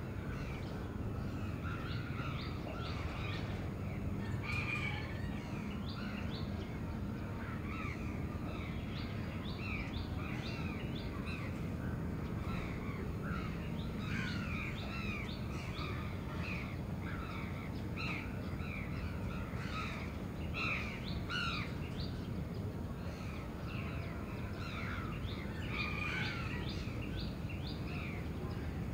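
Crows cawing among many overlapping short bird calls, over a steady low hum of the city.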